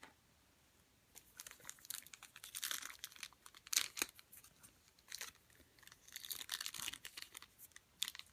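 A trading-card pack wrapper being crinkled and torn open, in irregular bursts of crackling from about a second in, with sharper crackles near four seconds and near the end.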